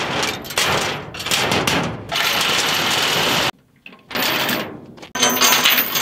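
Steel tie-down chains rattling and clanking as they are handled and pulled off a steel trailer deck. The rattling comes in bursts, with a brief pause about three and a half seconds in, and the last burst has a bright metallic ring.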